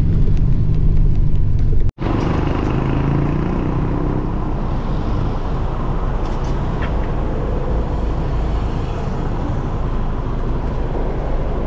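Steady engine and road noise of a moving bus. It cuts out abruptly about two seconds in and comes back as a rougher, more even rush of road noise.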